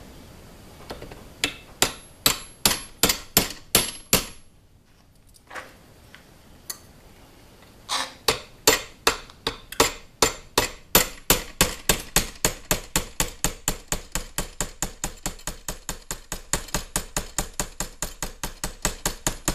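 Small hammer tapping a punch held against a 1911 pistol's rear sight, drifting the sight sideways in the slide's dovetail to center it. Sharp metallic taps about four a second: a run of about ten, a pause of a few seconds, then a long steady run.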